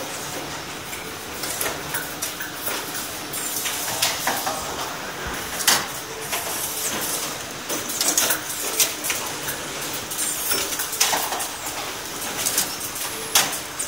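Garment-factory machinery running with a steady noise, broken by frequent irregular sharp clicks and clatters, the loudest about halfway through.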